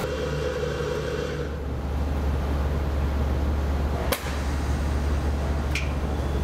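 XSharp punch grinder at the end of its grinding cycle: the coolant spray hiss cuts off at the start, leaving the machine's steady low hum. Two sharp clicks come about four and six seconds in.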